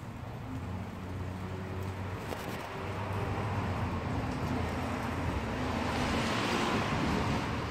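A road vehicle going by: a steady low engine hum with tyre and road noise that builds to a peak about six to seven seconds in, then eases off.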